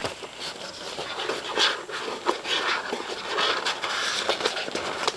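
Handling noise close to the microphone: irregular rustling bursts with a few light knocks.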